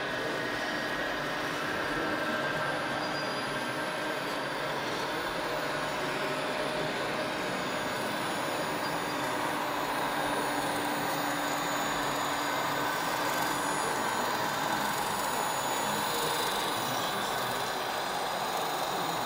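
Radio-controlled model construction machines running: a steady whine of small electric motors and gears over a continuous hiss.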